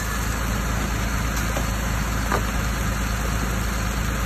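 An engine idling steadily with an even low drone.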